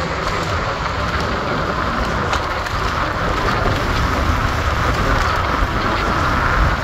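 Steady wind rush on the microphone of a moving bicycle, over the hum of street traffic, growing a little louder in the second half.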